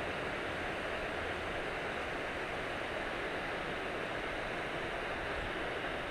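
Steady, even rushing noise with no breaks and no distinct events.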